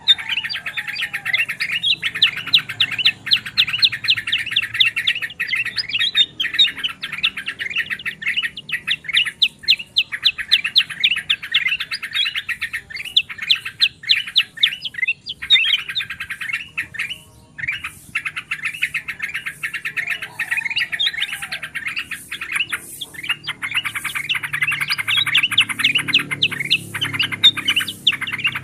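Bulbuls chattering busily in a dense, almost unbroken run of rapid, sharp notes, with only brief breaks. The mix is yellow-vented bulbul (trucukan) together with kutilang emas and kutilang sutra.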